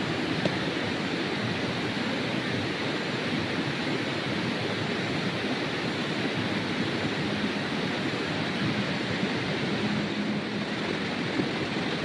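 Steady rushing of a fast-flowing river, full of water, running without a break.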